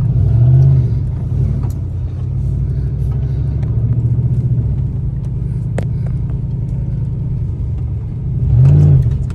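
Ram pickup truck's engine rumbling as it drives through deep unplowed snow, revving up and dropping back briefly about half a second in and again, harder, near the end.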